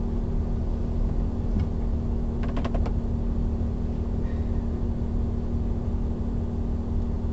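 Steady low mechanical hum with a constant drone, and a few faint clicks around two to three seconds in.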